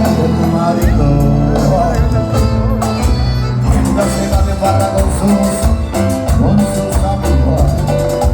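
Live cuarteto band music, loud, with a steady driving beat, a bass line and held melodic notes between sung lines.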